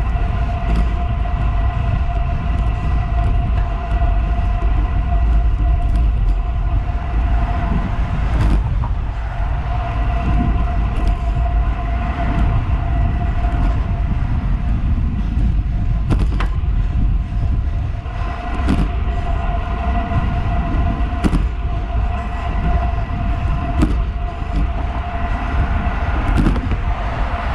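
Wind rushing over a handlebar-mounted action camera and tyre rumble from a road bike on Roval Rapide CLX50 carbon wheels riding at about 33 km/h, with a steady whirring tone through it. A few sharp ticks from bumps in the road surface.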